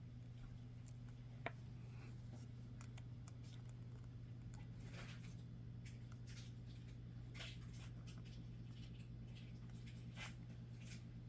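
Faint small clicks and scrapes of a metal bracelet chain and slide clasp being handled and hooked together, with one sharper click about a second and a half in. A steady low hum runs underneath.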